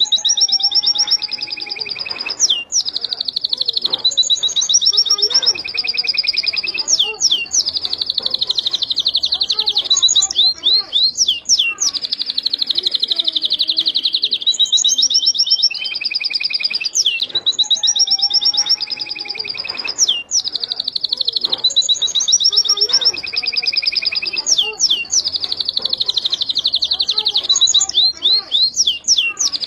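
Domestic canary singing a long, unbroken song of fast, high trills and rolls, broken by quick sweeping notes between the rolls.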